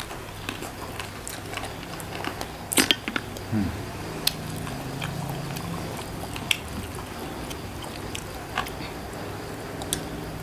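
Close-up eating sounds: chewing and wet mouth clicks, with scattered small clicks and a sharper click about three seconds in.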